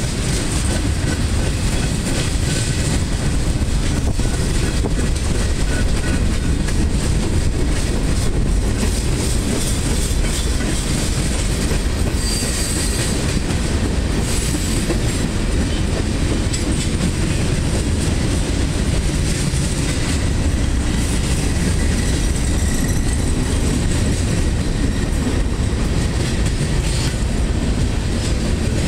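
Freight cars of a long mixed freight train rolling past at track side: a steady rumble of steel wheels on rail with clickety-clack over the rail joints, and brief high-pitched wheel squeal around the middle.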